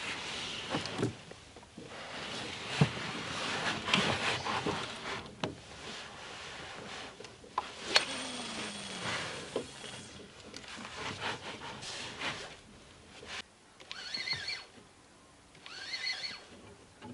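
Spinning reel being cranked to wind in line, heard as three short spells of reeling with a thin whirring tone near the end. Before that, a rough rustling with scattered clicks and one sharp click about two-thirds of the way through.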